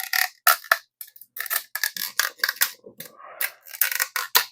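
Rim strip being pressed into the center channel of a bicycle rim and worked under the bead hook by hand, giving a string of irregular clicks and crackles.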